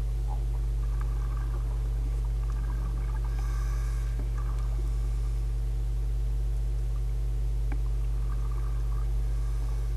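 A steady low electrical hum that does not change, with a few faint ticks and a brief soft hiss about three and a half seconds in.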